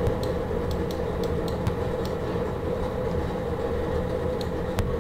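A steady rumbling hum, with short runs of quick clicks from a computer mouse's scroll wheel as the web page is scrolled.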